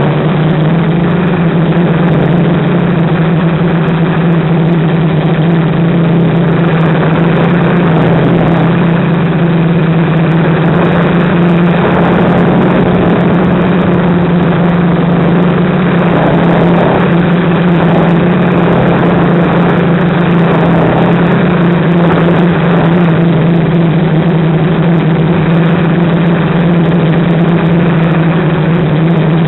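Dead-cat-frame FPV quadcopter's electric motors and propellers running steadily in flight, a loud continuous buzzing hum picked up close by the onboard camera.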